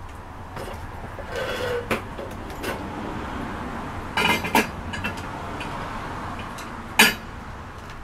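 Small metal scrap pieces and fittings clinking and knocking as they are sorted through by hand in a box, with one sharp clank about seven seconds in the loudest.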